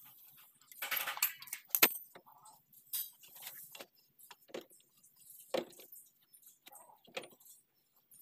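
Irregular metallic clinks and clicks of a ratchet, socket and wrench being handled and worked on engine bolts, with the sharpest clink a little under two seconds in.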